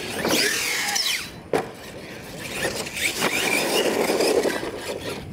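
Electric R/C monster truck motor whining, its pitch sweeping up and down several times as the throttle is worked, with tyre noise on dirt and a sharp knock about a second and a half in.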